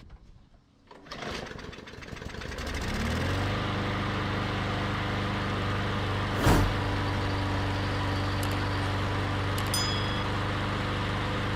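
Briggs & Stratton E/EX-series lawn mower engine starting: it catches, revs up and settles into steady running, its plastic carburetor now cleared of a clog. A single sharp knock sounds about halfway through.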